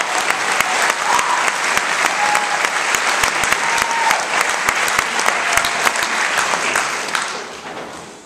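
Theatre audience applauding at the end of a musical number, the clapping dense and steady, then dying away over the last second or so.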